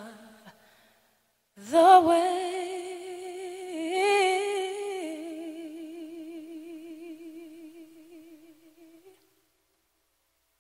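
A single unaccompanied voice holding one long note with vibrato. It rises into the note, steps up briefly and back down, then slowly fades out.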